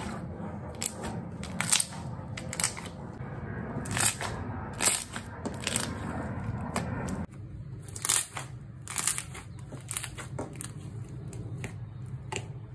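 Clicky slime being squeezed and kneaded by hand, giving irregular sharp clicks and pops. A low hum underneath stops a little past halfway.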